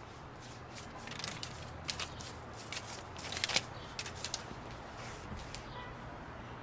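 Paper banknotes rustling as a handful is handled and dropped into an aluminium box: a faint scatter of light rustles and ticks, loudest about three and a half seconds in.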